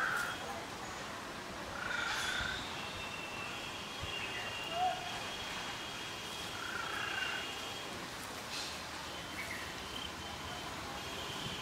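Outdoor background hiss with a few short animal chirps, one every two or three seconds, and a thin high steady buzz like insects through the middle stretch.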